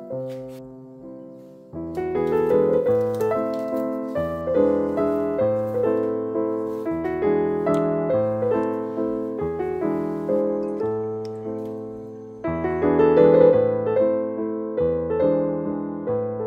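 Background piano music: a gentle melody of struck notes that fade away, sparse and soft at first and filling out about two seconds in.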